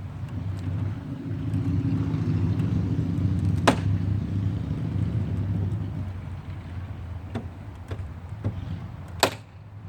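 Low rumble of a motor vehicle that swells over the first seconds and fades after about six seconds, with a sharp knock about four seconds in and a louder one near the end.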